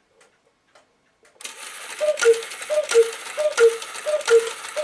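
Antique cuckoo clock striking the hour. After a second and a half of faint pendulum ticking, the strike train starts whirring and the bellows sound the two-note cuckoo call, higher note then lower, about four times in quick succession, each with a sharp strike, as it counts out five o'clock.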